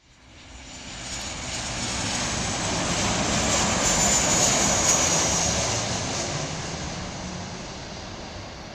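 Boeing 737 airliner's jet engines passing close as it lands: a steady rushing noise that swells to its loudest about four to five seconds in, with a faint high whine at the peak, then slowly fades.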